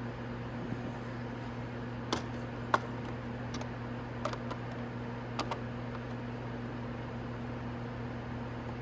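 A handful of light clicks and taps from fitting a screw into a motorcycle's plastic fairing by hand, the sharpest a little under three seconds in. A steady low hum runs underneath.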